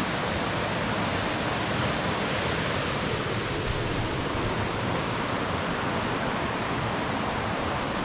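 Steady rush of a river cascading over rock slabs, an even noise that does not change.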